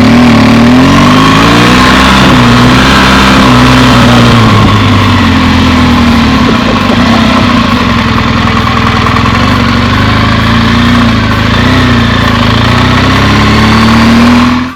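Vehicle engine running under way, its note rising and falling.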